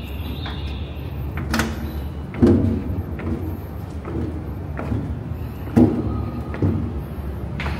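Footsteps at an even walking pace, a sharp knock a little under once a second, two of them louder than the rest, over a steady low rumble.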